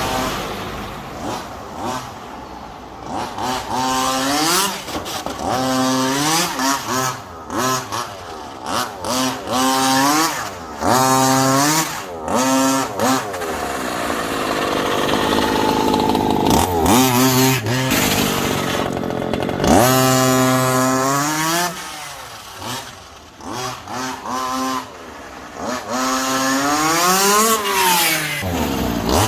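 Small two-stroke petrol engine of a 1/5-scale MCD RC car revving over and over, its pitch rising and falling in many short throttle blips and a few longer pulls, with a steadier stretch about halfway through.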